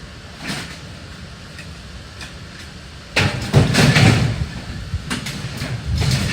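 Scrap metal being thrown onto a pile, with a loud clattering crash about three seconds in and another near the end.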